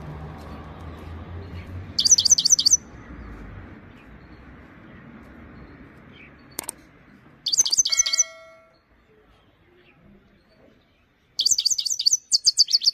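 Himalayan (grey-crowned) goldfinch singing in short bursts of rapid, high twittering notes: a brief phrase about two seconds in, another just past the middle, and a longer phrase near the end. A single sharp click comes just before the middle phrase.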